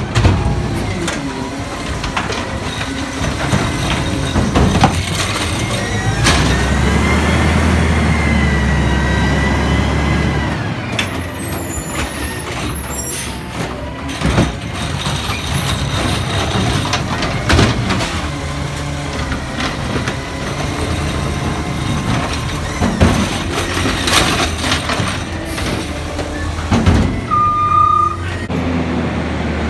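Garbage truck running, its engine swelling for a few seconds while a whining tone rises and falls, followed by a short hiss typical of an air-brake release, with scattered knocks and clanks. A brief beep sounds near the end.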